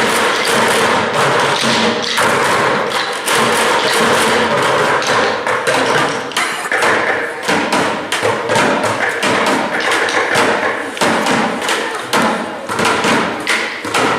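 Rapid, irregular thumps and taps, several a second, with music underneath.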